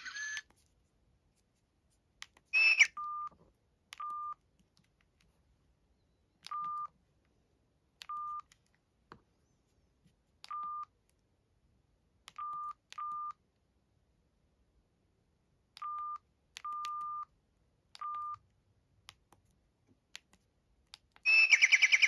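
Samsung SGH-T410 flip phone keypad tones: about ten short single-pitch beeps at irregular intervals, one per key press while scrolling its menus, with faint key clicks. A short chime sounds about three seconds in, and near the end the phone's speaker starts playing a melody.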